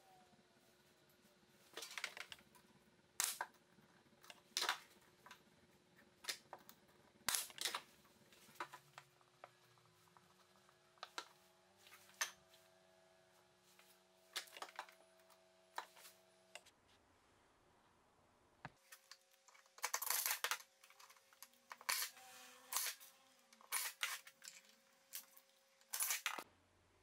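Sharp clicks and knocks, about twenty spread unevenly with a brief cluster about two-thirds of the way in: small MDF corner blocks being handled and set into the corners of an MDF frame.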